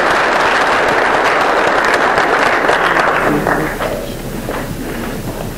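Audience applauding in a large hall, the clapping dying away about three seconds in, leaving faint voices and room noise.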